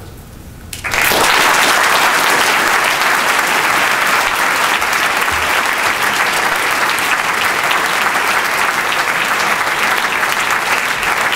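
An audience applauding, starting abruptly about a second in and holding steady.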